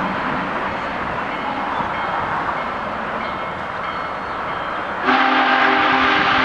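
Steam locomotive chime whistle of Union Pacific Big Boy No. 4014 sounding a loud, held chord of several tones, starting suddenly about five seconds in over steady background noise.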